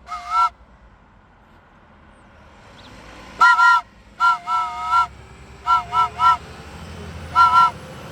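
Hand-blown multi-note train whistle sounding a chord in short toots: one at the start, two longer blasts a few seconds in, three quick toots, then one more near the end. A heavy truck's engine rumble grows louder through the last couple of seconds.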